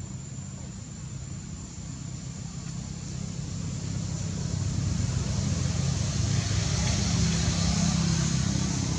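A motor vehicle's engine running, growing steadily louder over the first five seconds or so and then holding.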